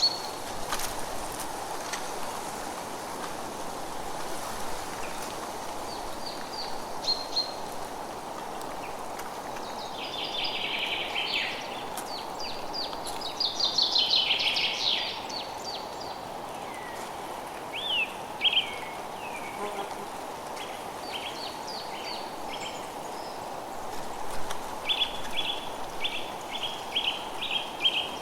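Forest songbirds singing and calling over a steady background hiss. Dense trills come about ten and fourteen seconds in, and a quick run of repeated short notes starts near the end.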